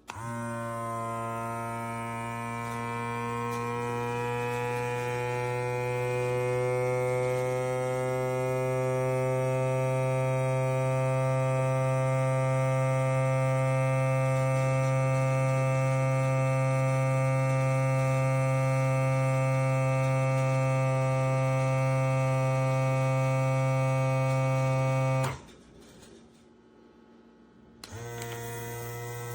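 Small electric vacuum pump motor of an ikiu mason jar vacuum sealer running, a loud steady hum whose pitch rises a little over the first several seconds and then holds. It cuts off abruptly about 25 seconds in and starts again more quietly near the end.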